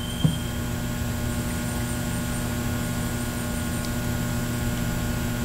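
Steady electrical hum with several fixed tones over an even background hiss, and one light tap about a quarter second in.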